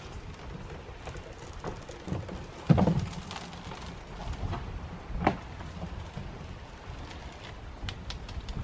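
Hull of an Old Town open canoe thudding onto leaf-covered ground as it is set down off the shoulders: one loud thud about three seconds in and a second, smaller knock a couple of seconds later as it is handled and turned, with leaves crunching underfoot and a low wind rumble.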